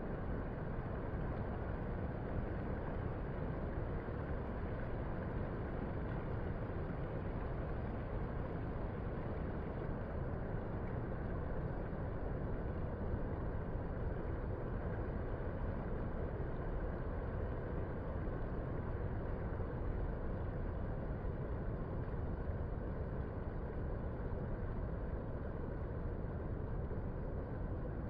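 Steady, even low rumble of outdoor beach ambience, with no distinct events.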